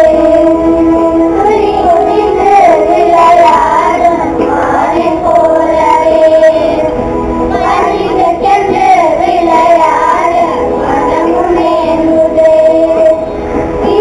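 Children singing a song together over steady musical accompaniment, loud and continuous.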